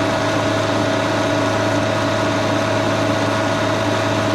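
Brown & Sharpe No. 2 plain milling machine running steadily under a cut, a constant mechanical hum with a few steady tones.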